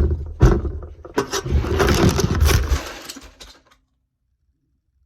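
Loud crackling, knocking and rumbling close to the microphone, like the recording device being handled, which stops suddenly nearly four seconds in.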